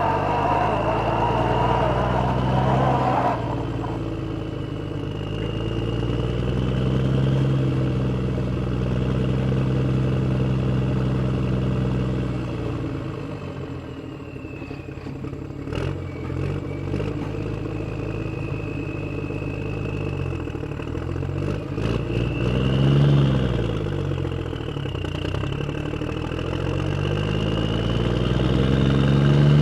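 Vehicle engines running and revving, the pitch rising and falling again and again, with a thin high whine that wanders along above them. A few sharp clicks come about halfway through.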